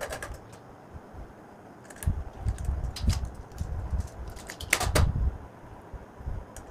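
Hands handling a plastic switch-board plate and its fittings: scattered clicks and taps, with dull low knocks and rubbing through the middle and a sharper pair of clicks about five seconds in.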